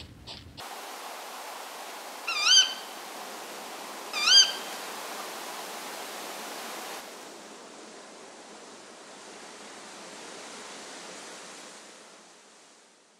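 Tawny owl giving two sharp, rising 'kewick' calls about two seconds apart over a steady background hiss. The hiss drops at about seven seconds and fades away near the end.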